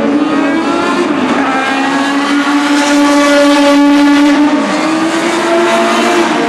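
Classic endurance race car engines running hard at high revs. The engine note holds steady, dips about four and a half seconds in, climbs again and falls away sharply at the end.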